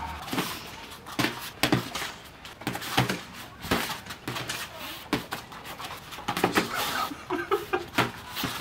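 Boxing gloves landing during a sparring exchange: a dozen or so sharp, irregular slaps and thuds of punches hitting gloves and bodies.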